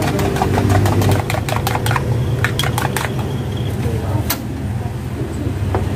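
Rapid, irregular clicking and tapping of kitchen utensils at a food stall counter for about three seconds, then a few single taps, over a steady low rumble of road traffic.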